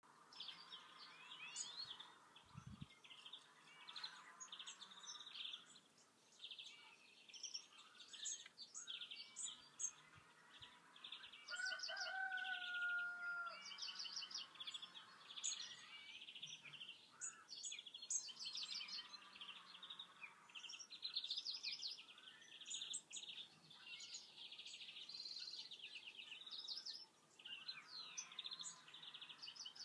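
Small songbirds chirping and singing, many overlapping quick chirps and trills, faint. About twelve seconds in, a steady held tone sounds for just under two seconds.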